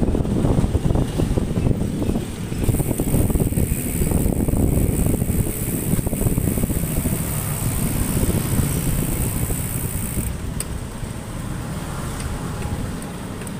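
Wind buffeting the microphone while riding along a street, a rough, gusty rumble over road and traffic noise. A steady high hiss joins from about three seconds in until about ten seconds in.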